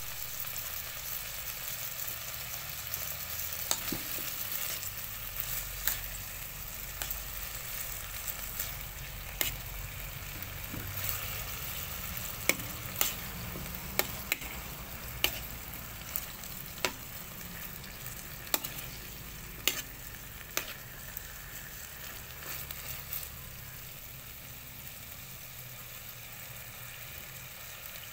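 Food frying and sizzling in a pan, a steady hiss, with about a dozen sharp knocks of a utensil against the pan as it is stirred.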